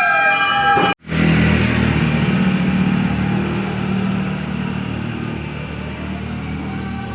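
A siren winding down in a falling wail, cut off sharply about a second in. Then a road vehicle's engine runs with road noise, slowly fading, while a siren faintly starts to rise again near the end.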